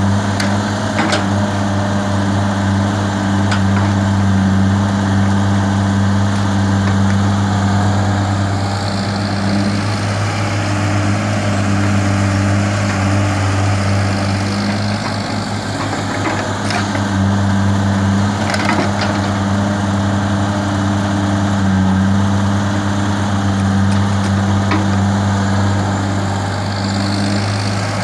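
Tata Hitachi crawler excavator's diesel engine running steadily with a constant low hum while the machine digs and swings loads of wet mud. A few sharp knocks stand out above it.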